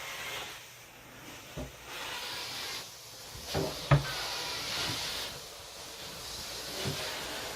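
Carpet-cleaning wand on a truck-mount extractor, its suction hissing in swells as it is pushed and pulled across the carpet, with a few knocks, the sharpest about four seconds in.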